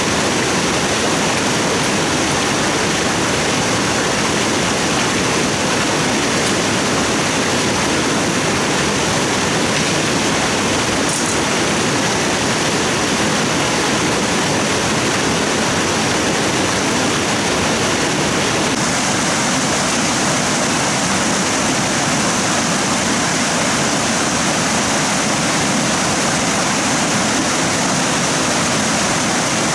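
Steady, loud rushing water, an even wash without breaks.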